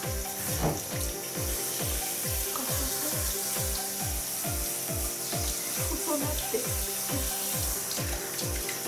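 Water spraying from a handheld shower head as a wet kitten is rinsed in a bathtub, a steady hiss. Background music with a steady beat, about three beats a second, runs underneath.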